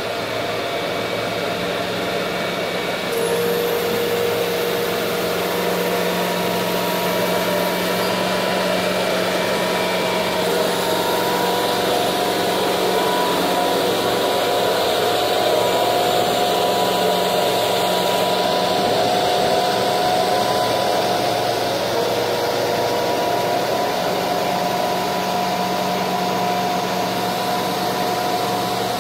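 Heavy-haul rig moving a load on a Scheuerle modular trailer at crawling speed: a steady engine drone with constant humming tones, and a high whine that comes and goes during the first half.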